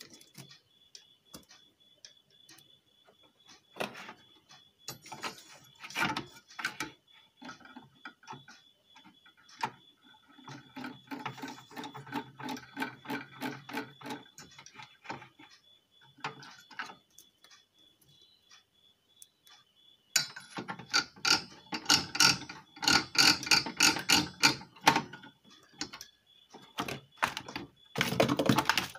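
Screwdriver work on a metal inverter case: screws being turned and tools knocking. There are scattered knocks, then two runs of rapid, even clicking at a few ticks a second, one in the middle and a louder, longer one near the end, over a faint steady high whine.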